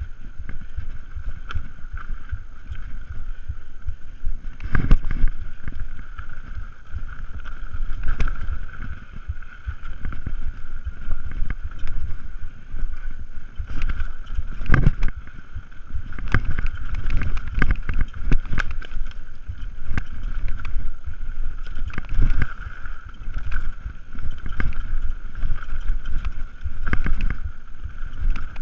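Mountain bike descending fast on dirt singletrack: wind buffeting the camera's microphone, tyres rumbling over the ground and the bike rattling, with louder jolts about five and fifteen seconds in. A steady high buzz runs underneath.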